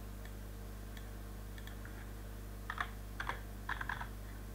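Computer keyboard keystrokes: a few faint taps, then a quick run of keystrokes from about two and a half to four seconds in as a number is typed into a field, over a steady low electrical hum.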